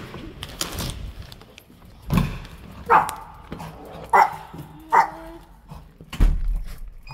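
The handle of a digital door lock clicks as the door opens, then a small white dog barks three times, sharp excited greeting barks about a second apart.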